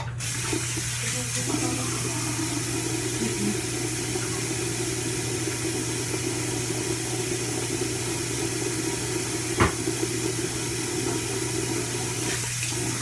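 Water running steadily from a tap into a sink, switched on suddenly at the start, with a single click about two-thirds of the way through.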